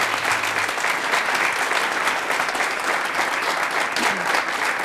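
Studio audience applauding steadily: a dense patter of many hands clapping at an even level throughout.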